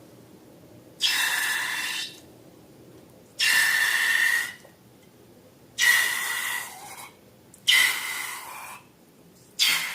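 Air hissing out of a balloon neck in five separate rushes of about a second each, each with a faint steady whistle inside the hiss.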